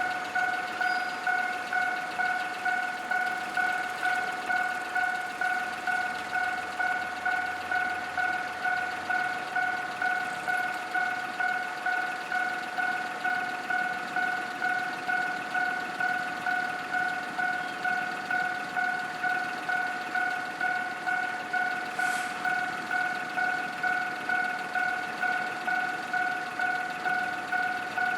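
Japanese railway level crossing's electronic warning bell ringing steadily, one pitched ding repeating about twice a second. This is the signal that the crossing is closed for an approaching train.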